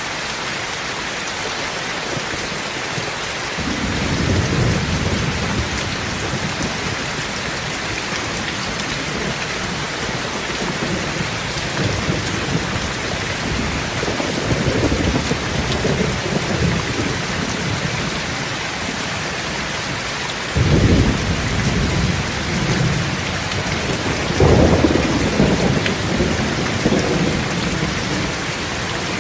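Steady rain falling, with low rolls of thunder rumbling in and out several times; one breaks sharply about two-thirds of the way through.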